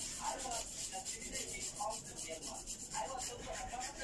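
Nail file rasping across toenails in quick, repeated back-and-forth strokes.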